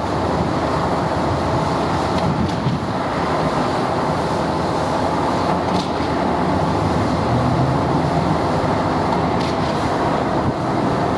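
Diesel engines of heavy construction machinery running steadily: a Delmag RH 14.33 rotary drilling rig with its auger in the ground and a Caterpillar excavator. A few faint short clicks sound over the rumble.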